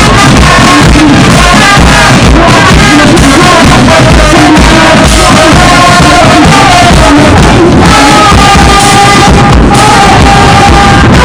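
Marching band playing: trumpets carry a held tune over a steady beat of bass and snare drums, very loud and close.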